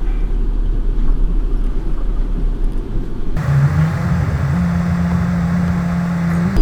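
Vehicle engine running with low rumbling road noise. About three seconds in it gives way abruptly to a louder, brighter noise with a steady low hum.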